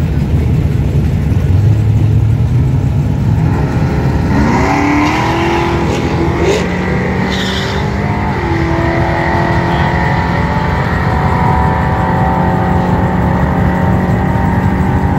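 Drag-race car engines running with a loud, steady low rumble. About four seconds in, one engine revs up with a rising pitch, then holds a steady high note for the rest of the time.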